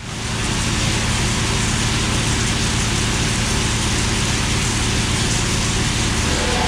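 John Deere 9500 combine running, a steady diesel engine drone under a dense rushing noise, coming in suddenly and holding level.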